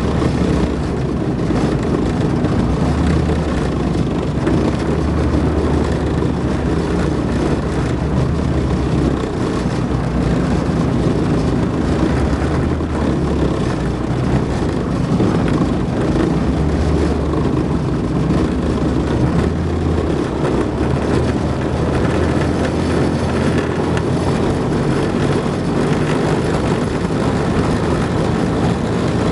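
Tracked armoured infantry vehicle driving at steady speed, heard from on top of its hull: loud, continuous engine and running-gear noise with a low drone that swells and eases slightly.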